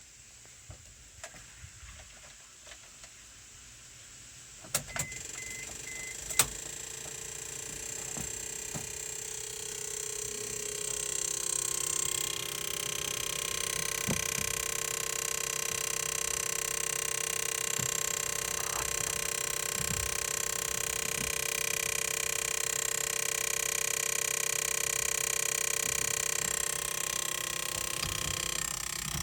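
Failed flasher relay in a Daihatsu Hijet buzzing continuously: a steady electrical ring that starts after a few clicks and grows louder. This relay fault is what drained the battery.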